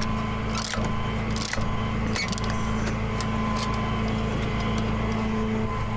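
Ratchet chain binder being cranked tight on a tie-down chain, sharp clicks about every three-quarters of a second in the first couple of seconds, then fainter ones. The truck's engine idles steadily underneath.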